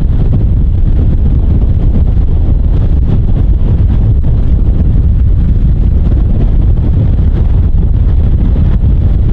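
Strong wind buffeting the camera microphone on an open boat: a loud, steady, blustery low rumble.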